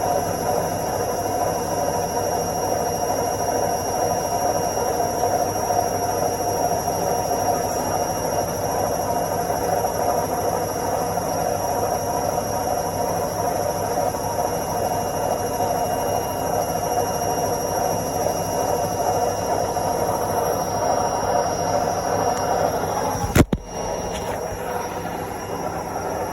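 Washing machine running its spin cycle, a steady whirring drone. About three seconds before the end there is one sharp click, and after it the drone goes on a little changed.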